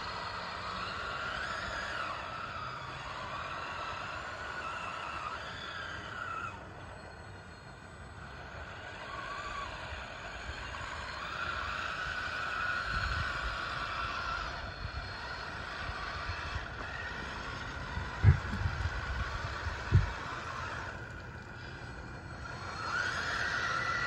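Radio-controlled model bulldozer's electric motors whining, the pitch rising and falling as it drives, with its steel tracks crunching over loose gravel. Two sharp knocks, the loudest sounds, come about two-thirds of the way through and again a couple of seconds later.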